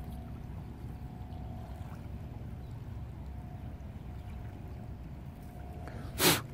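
Steady low outdoor rumble with a faint steady tone over it, and a brief loud rush of noise near the end.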